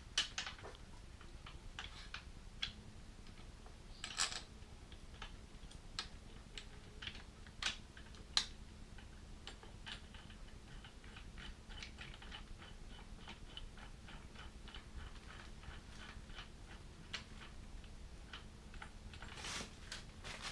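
Light metallic clicks and knocks of bolts, brackets and hand tools being handled while pannier mounting hardware is fitted, with a run of small, evenly spaced ticks in the second half.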